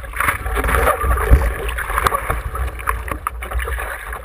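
Seawater sloshing and splashing against a surfboard right at the camera on its nose, with scattered drips and slaps on the board and low buffeting rumble on the microphone.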